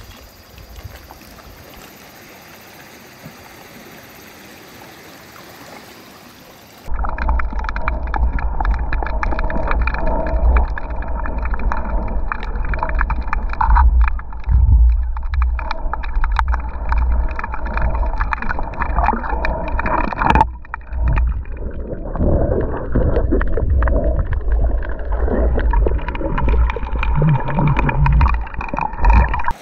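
Water gurgling and sloshing. It becomes suddenly much louder and muffled about seven seconds in, with a heavy low rumble and many small clicks and pops.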